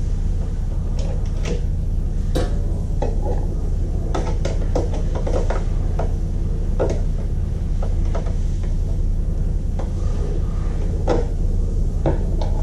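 Scattered metal clicks and clunks as the clamp latches on the steel ring between an industrial vacuum's head and its filter housing are worked by hand, over a steady low rumble.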